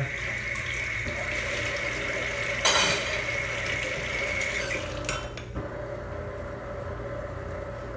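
Kitchen tap running while dishes are rinsed in the sink, with a clatter of dishes about three seconds in and a few knocks near five seconds; the water shuts off about five and a half seconds in.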